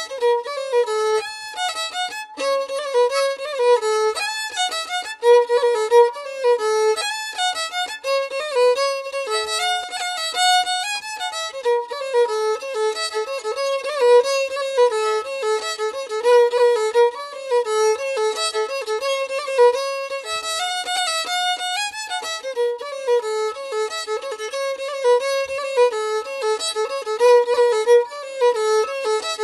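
Background music: a fiddle playing a tune of quickly changing notes.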